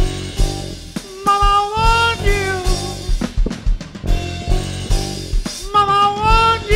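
Live rock band playing: the drum kit keeps a steady beat of about two kick-drum hits a second with snare, under electric guitar, bass and keyboard. A held melodic lead line that bends in pitch comes in about a second in and again near the end.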